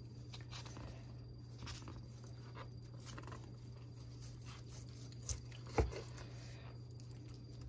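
Chef's knife slicing through a raw salmon steak on a bamboo cutting board: faint crunching and crackling as the blade goes through skin and flesh, with two knocks of the blade on the board about half a second apart a little past five seconds in.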